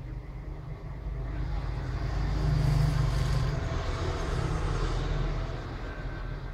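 A low background rumble that swells over a couple of seconds and then fades back down.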